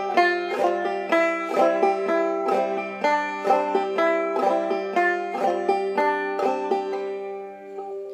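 Five-string banjo in double C tuning played clawhammer style: a passage of sharply struck, ringing notes over a steady high drone, with the playing stopping and the notes dying away near the end.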